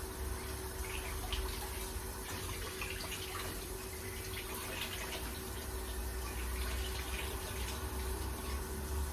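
Kitchen tap running into a sink, with small splashes and knocks from something being handled under the water.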